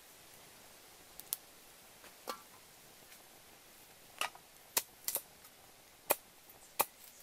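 Wood fire burning under a wok of heating water, giving about nine sharp, irregular crackles and pops over a faint steady background.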